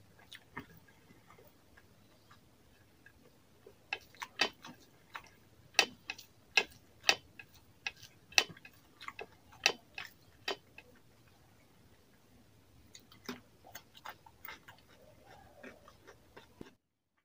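A bare hand mixing and squeezing rice and curry gravy on a plate, making sharp sticky clicks: a few at first, then a run of about two a second for several seconds, then sparser ones before the sound cuts off suddenly near the end.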